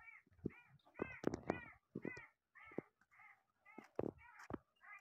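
A bird giving a long run of short, harsh, evenly spaced calls, a bit more than two a second, faint.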